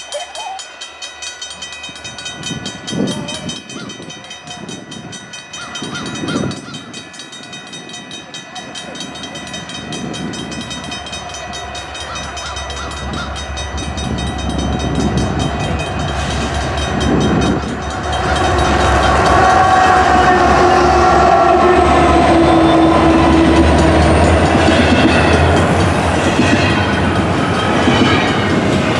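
Diesel freight train with GE ET44AC locomotives approaching, its engine rumble and rail noise growing steadily louder and becoming loud about two thirds of the way in as the locomotives draw close. The air horn sounds in sustained chord tones.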